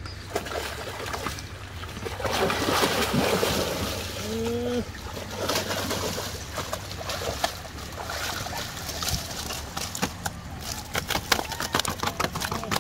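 Fish thrashing and splashing at the water's surface inside a cast net as it is hauled up beside a wooden boat. Near the end come quick sharp knocks and slaps as the netted fish flop on the boat's deck.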